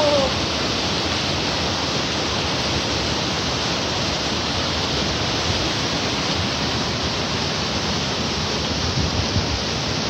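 Steady rush of water from a mountain waterfall.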